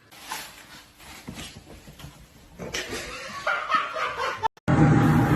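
A dog whimpering and yipping, with a few short scuffling noises. Near the end the sound cuts to a much louder steady noise.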